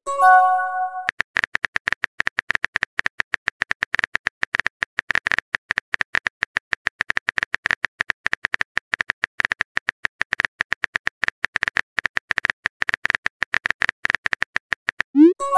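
Texting-app sound effects: a rapid run of keyboard typing clicks, many a second. A short rising whoosh with a brief chime plays at the start as a message pops up, and the same whoosh and chime come again near the end.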